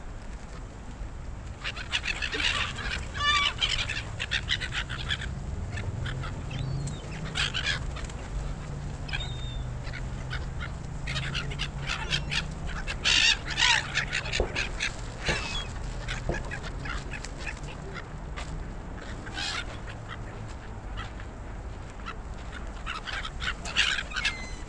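A flock of gulls calling, short harsh screeching cries coming in scattered bursts, over a steady low rumble.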